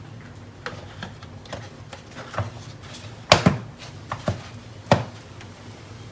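Engine-bay parts and tools being handled: a run of sharp clicks and knocks, with two louder knocks about a second and a half apart.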